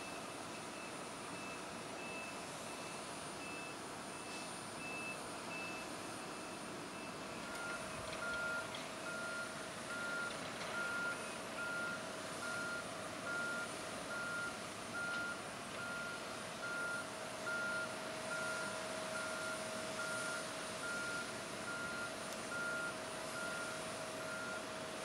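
Airport ground-service vehicle's backup alarm beeping steadily, a little more than once a second, over a steady hum. Before it, for the first several seconds, a fainter, higher-pitched beeper sounds at a similar pace.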